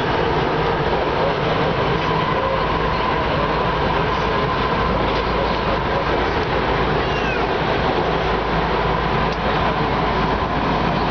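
Inside a moving metro car: a steady, loud running rumble with a constant whine through it. A faint brief squeal comes about seven seconds in.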